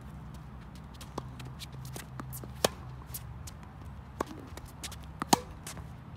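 Tennis rally on a hard court: a tennis ball being struck by rackets and bouncing, about four sharp pops spaced a second or so apart, the loudest near the end, with light shoe scuffs. A low steady hum runs underneath.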